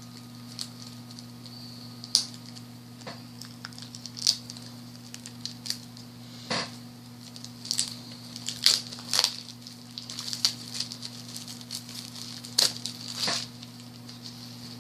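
Plastic wrapping of a trading-card deck being torn and handled as the deck is opened: irregular crinkles and crackles.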